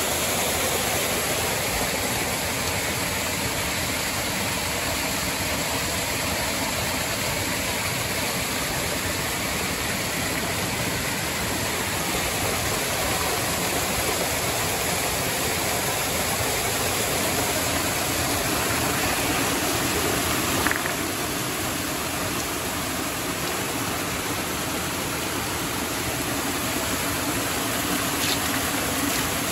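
Creek water cascading and splashing over rocks close by: a steady rushing noise, with one brief knock about two-thirds of the way through.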